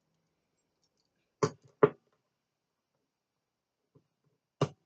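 Metal handcuffs being handled: two sharp clicks about half a second apart, and a third near the end.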